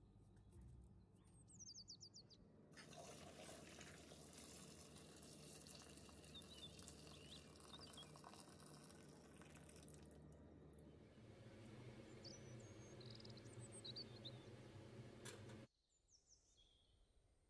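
Water running from a tap for about thirteen seconds, its sound changing about ten seconds in, then shut off suddenly. Birds chirp faintly in the background.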